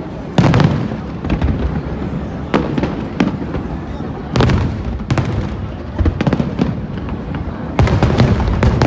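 Aerial fireworks bursting overhead: an irregular series of sharp bangs, a dozen or more, each trailing off in a low rumble, with a steady crowd murmur underneath.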